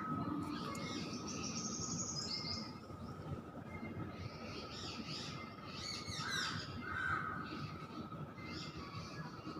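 Many birds chirping and trilling in a morning chorus, short overlapping calls throughout, over a steady faint tone.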